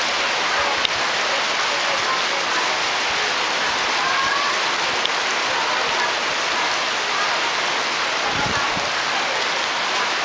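Steady typhoon rain falling in a dense, even hiss, with a brief click about a second in.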